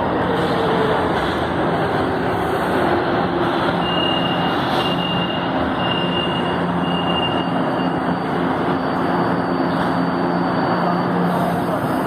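Metro train running past the platform: steady wheel-on-rail noise with a low electric motor hum, and a thin high whine that comes and goes between about four and eight seconds in.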